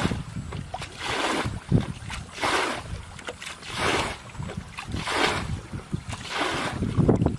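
Water swishing and sloshing in regular swells, about one every second and a quarter, as it is pushed through by hand, paddle or wading legs during cast-net fishing.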